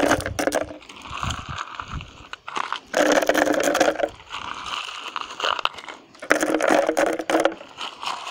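Handfuls of coarse stones poured into a cut plastic bottle, clattering and rattling against the plastic and each other in three bursts, with quieter rustling between.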